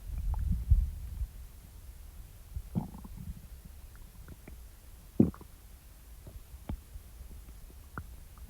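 Human stomach growling after eating: a low rumbling growl in the first second, then scattered short gurgles and pops, the sharpest about five seconds in.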